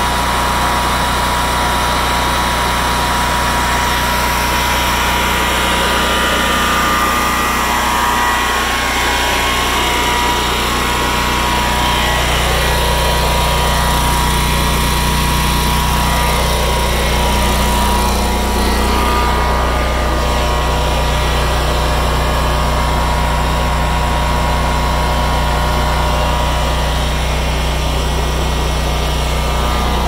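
Westinghouse 20 kW portable generator's V-twin engine running steadily at constant speed.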